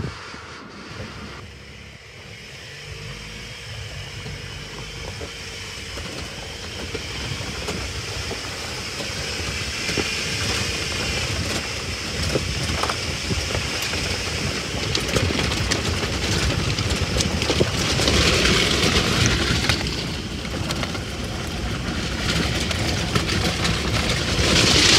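Car driving along a dirt road, engine and tyre noise heard from inside the cabin, growing louder through the stretch.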